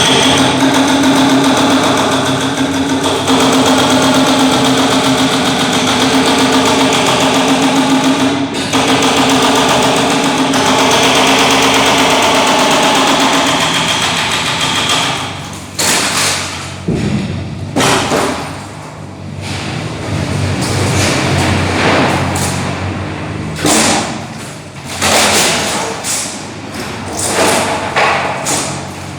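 A machine engine runs steadily with a strong hum for about fifteen seconds and then drops away, giving way to irregular heavy thuds and knocks from demolition work.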